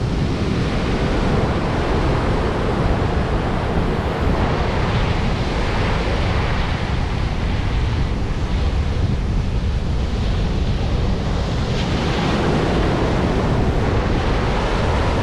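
Wind blowing on the microphone over breaking surf, a steady noise with a heavy low rumble.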